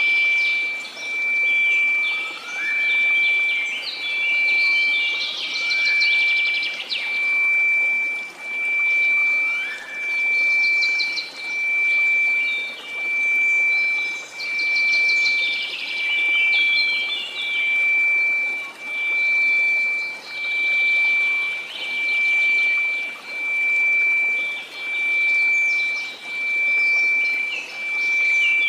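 A steady 2334 Hz sine tone, swelling and fading about every one and a half seconds, over a faint hiss of white noise, with birdsong chirping and trilling throughout.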